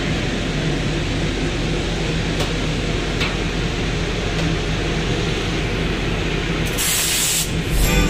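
Steady ship engine-room machinery noise, a constant hum and hiss. Near the end comes a sharp burst of high hiss lasting under a second.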